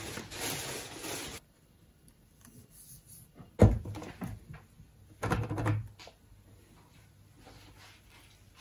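Handling noise from plastic parts: a rustle for about the first second and a half, then a single sharp knock a little over three and a half seconds in as a white PVC pipe is set into the 3D-printed plastic base, then a short clatter around five seconds in.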